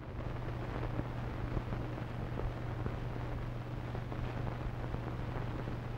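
Background noise of an old film soundtrack: a steady low hum under a constant hiss, with a light scattering of crackles, starting abruptly.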